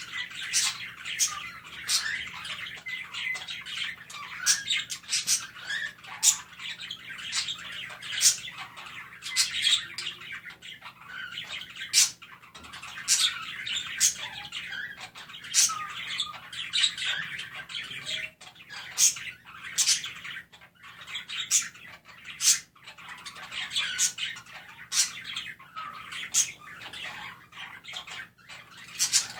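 A group of budgerigars chirping and warbling nonstop, with frequent sharp, loud squawks breaking through about once a second.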